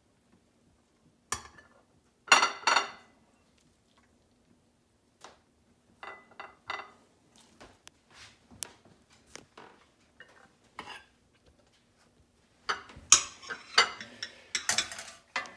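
A pasta server knocking and scraping against a stainless steel colander and ceramic plates as cooked pasta is dished out. The knocks come irregularly, the loudest a ringing clang about two and a half seconds in, with a busy run of clinks near the end.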